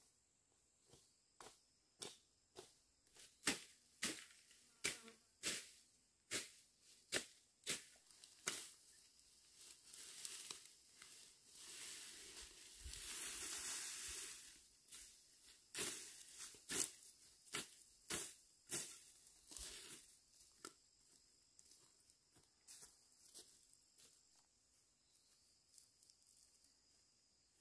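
Bamboo being struck with a hand tool: a run of sharp knocks, roughly two a second, that thin out after about twenty seconds, with a longer noisy swell in the middle. A faint steady insect drone sits underneath.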